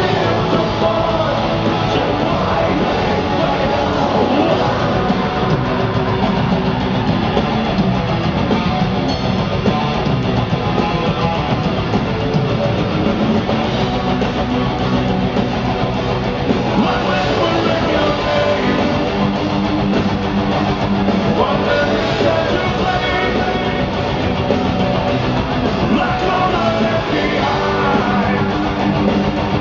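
A metal band playing live through a concert PA: distorted electric guitars, bass and drums in a dense, continuous wall of sound, with singing at times.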